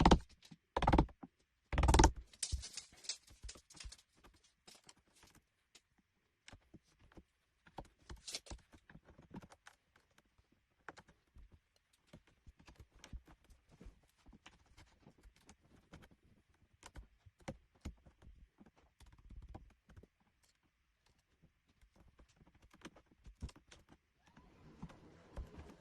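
Sharp wood chisel paring the edges and rounded corners of a tubular-latch recess in a door edge: a few louder knocks in the first two seconds, then faint, irregular clicks and scrapes.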